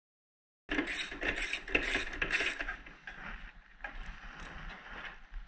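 Silent at first, then a socket ratchet clicking in quick even strokes, about four a second, as a bolt is turned out. After about two seconds it gives way to quieter, scattered clicks of tool handling.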